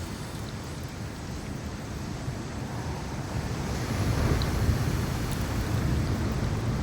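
Wind on the microphone mixed with sea surf: a steady low rushing noise that swells about four seconds in.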